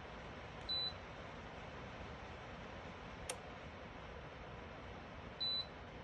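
BREEZOME ceramic tower space heater running with a steady fan hiss, and two short high beeps from its control panel about five seconds apart. A single sharp click comes midway.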